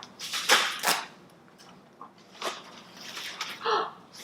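Packaging being handled: a few short, sharp rustling and crinkling bursts, the loudest about half a second in.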